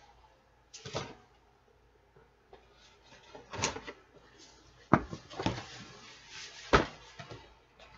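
Cardboard toy box being handled and opened: several sharp knocks and taps as the box is moved and its top worked open, with cardboard rustling and scraping between them.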